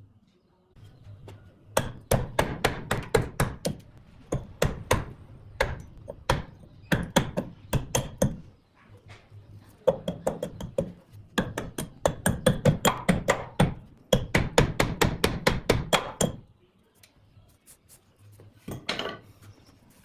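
Rapid hammer blows on wood, about four strikes a second, in runs: one from about two seconds in to eight, another from ten to sixteen, and a short run near the end.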